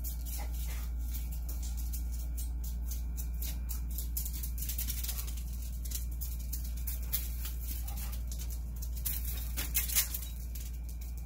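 Dogs scrabbling and jumping about on concrete and dry leaves: a dense run of light clicks and rustles over a steady low hum, with a few sharper knocks near the end.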